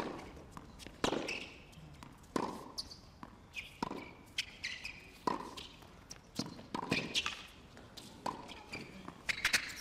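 Tennis rally on a hard court: a sharp crack of racket on ball about every one and a half seconds, back and forth, with lighter knocks between the strikes.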